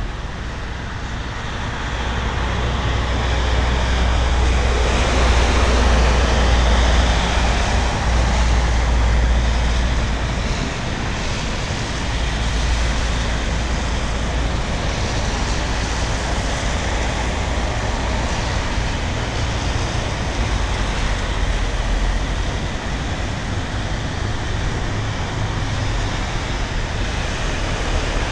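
Road traffic on a wet, snowy road: tyres hissing as cars and vans pass, swelling loudest about five to ten seconds in, over a steady low rumble.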